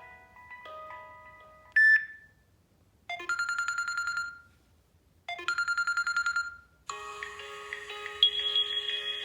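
Samsung Galaxy S4 alert tones played in turn: a chiming melody fades out, a single short beep sounds about two seconds in, then two identical bursts of fast trilling tone a couple of seconds apart, and a new many-note ringtone melody starts near the end.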